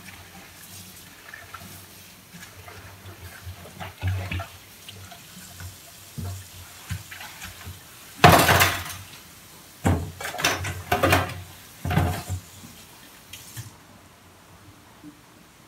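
Washing up at a kitchen sink: tap water running and splashing, with knocks and clatter of a steel pot and dishes. A loud rush of water about eight seconds in, then several clatters, before it quietens near the end.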